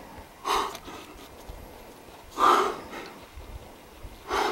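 A rock climber's hard, effortful breaths while jamming up a crack: three short exhalations about two seconds apart, the middle one loudest.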